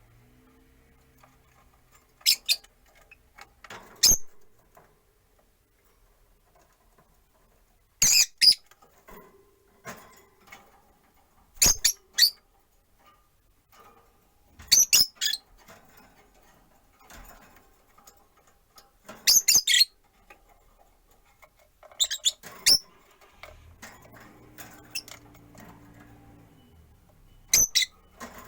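Rosy-faced lovebirds chirping: short, sharp high-pitched chirps in clusters every few seconds. A faint low hum comes in near the end.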